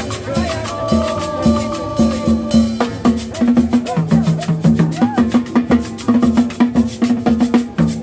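Live cumbia band playing a steady dance beat: drums and percussion over a repeating bass line, with held brass notes in the first few seconds.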